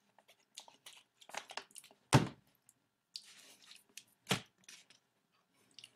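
Handling noise from a plastic water bottle: scattered clicks and crinkles, with a sharp thump about two seconds in and another knock a little past four seconds.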